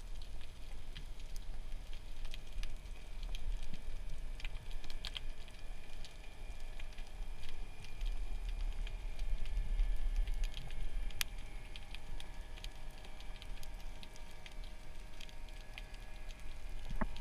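Underwater ambience picked up by a camera in a waterproof housing during a dive: a low rumble of water movement with scattered sharp clicks and crackle, and a faint steady hum. The rumble swells about halfway through.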